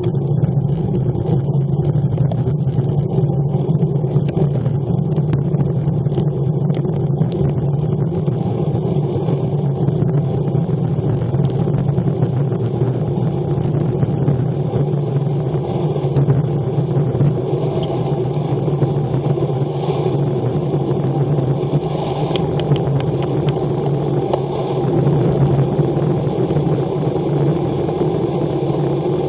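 Steady rush of wind on the microphone of a handlebar-mounted action camera, mixed with bicycle tyres hissing through standing water on a rain-soaked road as a road bike descends in heavy rain.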